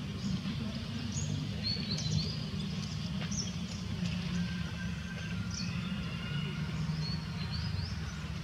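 Outdoor ambience: a steady low rumble with scattered short, high chirps of small birds.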